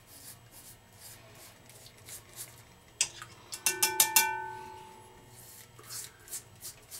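Three-blade Gillette Mach 3 razor scraping through stubble in short strokes. About three seconds in, the razor is knocked against the bowl several times, and the bowl gives a brief ringing tone that fades within a second. The scraping strokes resume near the end.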